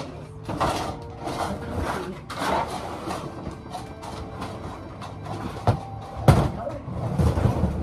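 Plastic storage tote bins being shifted and dragged out of a closet, a run of knocks and scrapes with a loud knock about six seconds in.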